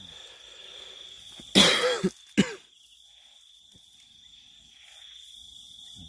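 A person coughs: a harsh cough about one and a half seconds in, followed by a second short cough, over a steady high insect trill.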